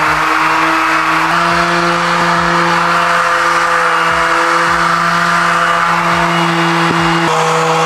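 Random orbital sander running against wood with 120-grit paper, together with a backpack dust-extractor vacuum drawing through its hose. It makes a loud, steady motor whine over a sanding hiss, and the pitch steps up about a second in and shifts again near the end.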